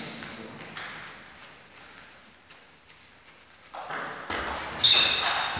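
Table tennis ball in play after a quiet pause: from about two-thirds of the way in, the serve and rally give a quick string of sharp clicks off bats and table, some with a short ringing ping.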